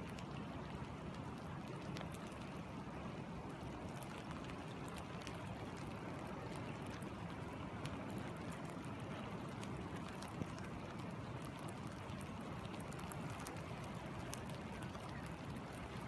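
Steady rush of a flowing river, with rain falling on the water and sand as scattered sharp drop ticks; one drop lands louder about ten seconds in.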